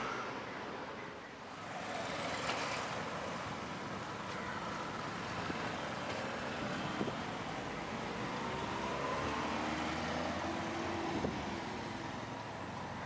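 Road traffic: cars and a truck driving past, with one vehicle passing close about two and a half seconds in and another engine's pitch sliding later on.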